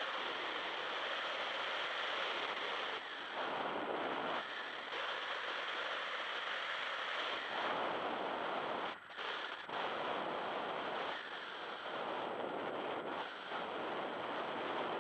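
Wind rushing over the microphone: a steady hiss with no clear pitch, dipping briefly a few times, most deeply about nine seconds in.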